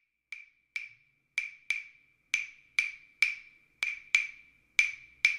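High-pitched percussive knocks, like a wood block being struck, about two a second in an uneven rhythm. Each is a sharp knock on the same high note that rings briefly.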